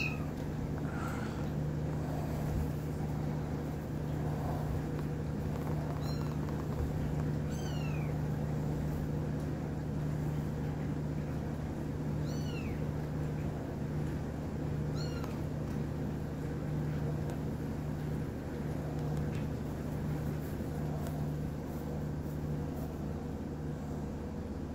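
A young kitten mewing: about five short, high-pitched mews, each falling in pitch, several seconds apart, over a steady low hum.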